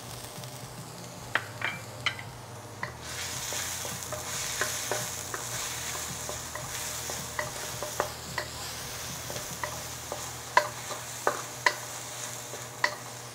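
Minced garlic sizzling in hot oil in a wok, with a wooden spatula stirring it and clicking against the metal. The sizzle grows louder about three seconds in.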